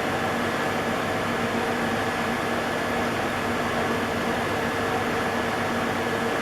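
Panasonic VR-006 welding robot cell running: a steady hiss with a constant hum of a few fixed tones, unchanging throughout.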